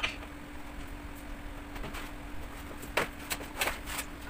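A few short knocks and taps of metal baking trays and food being handled on a stone counter: one at the start and a quick run of them about three seconds in. A steady low hum runs underneath.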